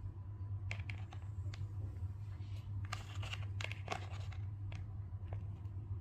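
Parrot's beak nibbling at melon: scattered short, crunchy clicks that come thickest about three to four seconds in, over a steady low hum.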